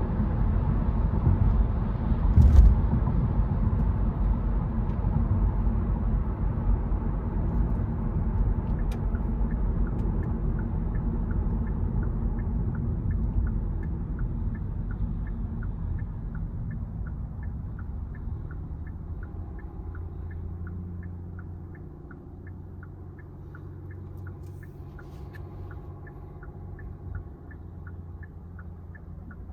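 Car road rumble heard from the cabin, fading as the car slows, with a single thump about two and a half seconds in. From about nine seconds on, a turn-signal indicator ticks steadily about twice a second.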